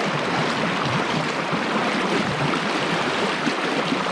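Fast, muddy river current rushing steadily around a wading angler's legs.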